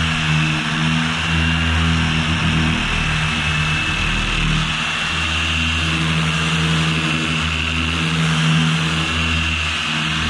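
Electric random orbital sander running steadily against a fiberglass boat hull, sanding down epoxy fairing compound: a constant motor hum with a high whine over it.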